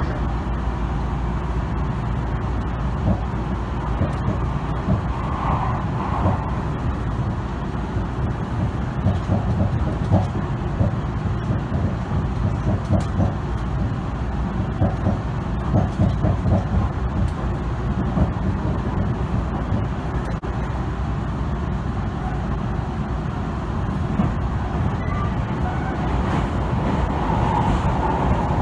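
Tobu Tojo Line express train running at speed, heard from inside the carriage: a steady low rumble of wheels on rail, with intermittent clatter.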